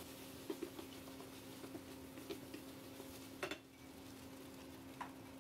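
Spatula scraping and clicking against a non-stick frying pan as scrambled eggs are stirred quickly: a string of light clicks, with a louder knock about three and a half seconds in and one more near the end.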